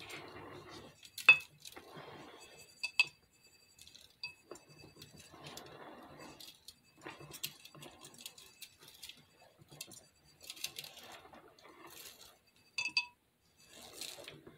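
Fake snow flakes shaken out of a glass jar, a soft rattling rustle in several pours, with a few sharp glass clinks, the loudest about a second in.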